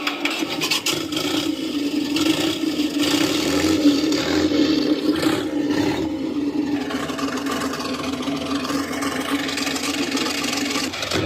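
TK50 electronic sound module in an RC Jagdtiger model, playing its simulated Maybach HL 230 P30 V12 tank engine through the model's speaker, running steadily just after start-up.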